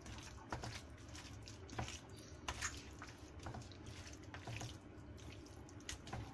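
Hands kneading raw pork collar slices in a wet soy-and-oil marinade in a stainless steel bowl: faint, irregular wet squelches and small clicks.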